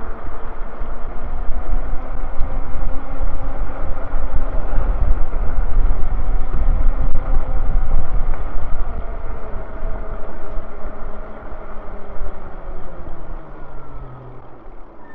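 Wind buffeting the microphone and road noise from a moving e-bike, with a faint humming whine that slowly falls in pitch. The noise eases off over the last few seconds as the bike slows.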